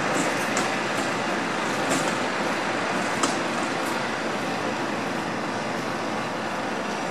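Steady wash of distant road traffic, with a few faint, short high ticks in the first few seconds.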